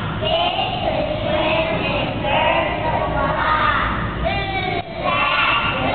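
Young children singing together, several voices at once, with a short break about five seconds in.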